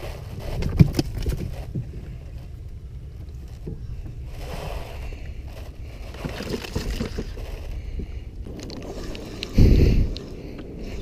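Wind rumbling on the microphone and water sloshing against a small boat's hull, with scattered small knocks and clicks from handling gear. A loud low thump comes near the end.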